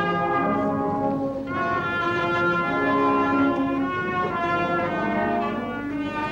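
Orchestral background music with brass, slow held chords that change every second or two.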